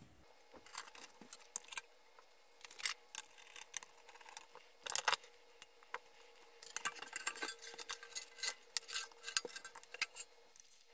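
Handling noise from an Eico 1064 power supply's sheet-metal case and cord: scattered light clicks and clatters as the unit is turned over and its bottom cover taken off, busier in the second half.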